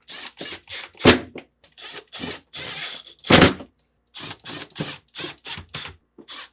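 A series of short plastic clicks, scrapes and knocks as screws are driven back into a refrigerator's interior fan cover with a hand tool, with two louder knocks about a second in and near the middle.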